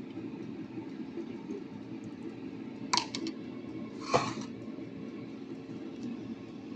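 A steady low hum with a few light clicks: a quick cluster about three seconds in and a single slightly longer click or scrape just after four seconds.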